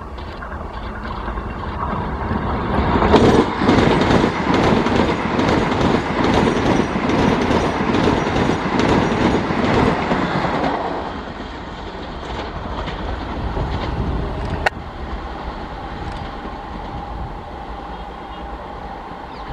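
Vande Bharat Express electric train set passing close at speed, its wheels clattering rapidly over the rail joints. The noise swells over the first three seconds, stays loud until about eleven seconds in, then drops away to a lower rumble, with one sharp click a few seconds later.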